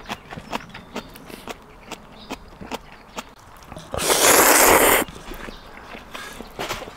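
Eating sounds from a bowl of ramyeon: a steady run of short smacks and clicks of chewing and chopsticks, with a loud rush of noise lasting about a second, four seconds in, that cuts off sharply.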